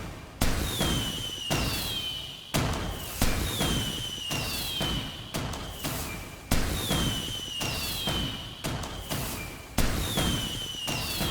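Fireworks going off in quick succession: sharp bangs every one to two seconds, each trailing off in rumble and crackle, with a high falling whistle that recurs about every two seconds.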